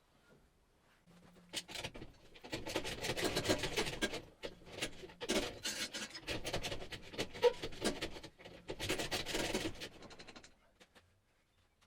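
Irregular bursts of rasping, scraping noise full of sharp clicks, lasting about nine seconds and stopping near the end.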